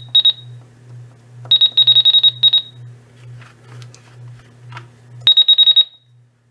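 Radio Shack 12-250 weather radio beeping as its buttons are pressed. The beeps are short and high-pitched: two at the start, a quick run of about ten around two seconds in, and another quick run near the end. A low hum underneath stops about five seconds in.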